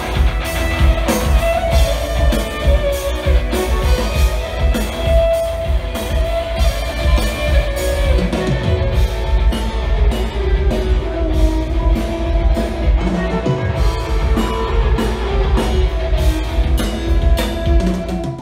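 A live rock band playing an instrumental passage: electric guitar over a steady drum-kit beat, loud and dense.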